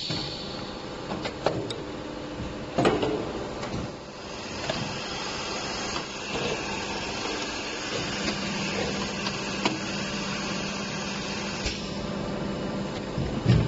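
Injection blow molding machine running: a steady hum and hiss, broken by several sharp clunks as the moulds and core-rod turret move, the loudest about three seconds in and another near the end.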